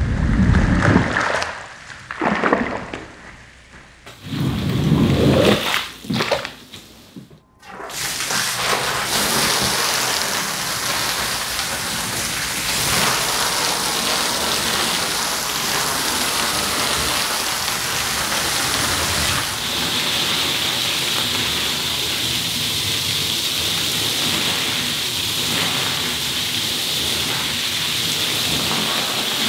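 A long-handled squeegee scraped across a wet rug in three strokes, pushing off dirty water. About eight seconds in, a steady spray of rinse water from a hose gun hitting the rug and the wet floor, which gets a little hissier partway through.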